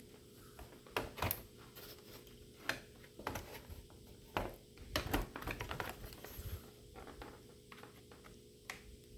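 Scattered light clicks, taps and rustles from handling an opened-up laptop, at an irregular pace, over a faint steady hum.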